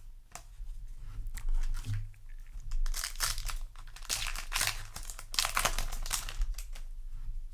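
Yu-Gi-Oh! trading cards and their foil booster wrapper being handled: a run of crinkling, rustling swishes, loudest from about three to six seconds in.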